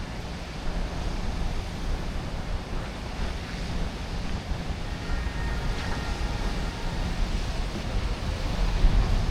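Steady city traffic noise, a continuous low rumble with an even hiss over it, and a faint high tone held briefly about five seconds in.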